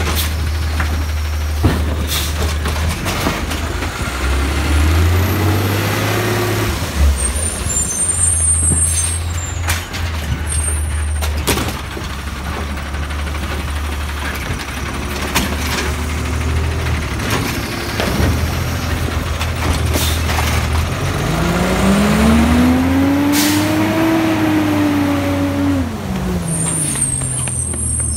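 Automated side-loader garbage truck at work: its diesel engine runs steadily, rising and falling twice in a whine as it revs to drive the hydraulic arm that lifts and tips a cart, the second time louder. Short sharp knocks and air hisses come at intervals.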